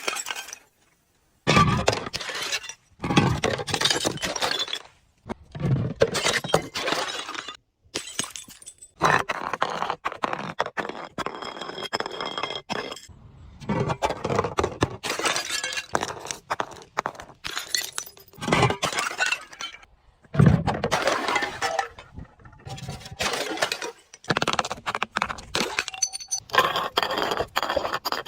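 Glass bottles being crushed and shattering, one after another: a crunching, crackling break every couple of seconds, with clinking shards and a short high ringing after some breaks.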